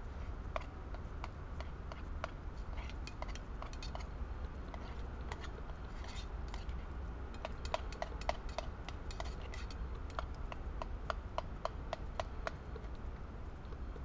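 Metal spoon clinking and scraping inside a small metal camping pot while eating from it: a run of quick, light taps, thickest in the second half, over a steady low rumble.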